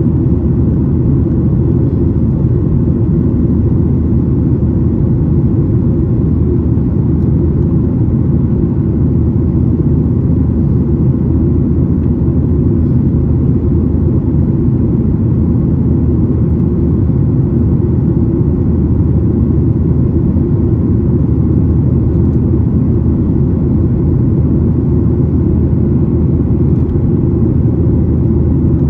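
Inside the cabin of a Boeing 737-900 in flight: a steady, low roar of its CFM56-7B turbofan engines and the airflow, heard from a window seat behind the wing.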